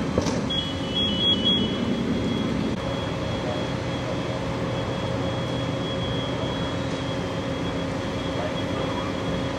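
Fire apparatus engine running steadily at the fire scene, a constant low hum. A thin high electronic tone flips between two pitches about a second in, then holds steady.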